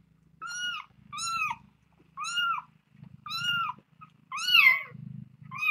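Kitten mewing over and over, five high calls about a second apart, each rising and then falling. A low purr runs underneath.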